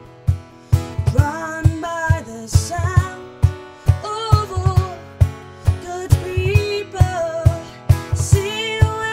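Acoustic performance of a contemporary worship song: a gliding melody line over a steady, regular low beat.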